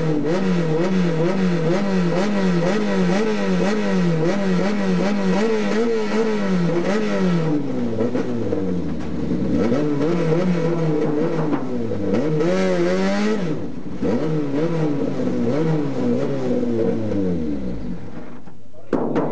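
Race car engine heard from inside the cockpit, its revs surging up and down in quick, even pulses, then dropping and picking up again several times as the car slows. The engine cuts off near the end, followed by a few sharp clicks.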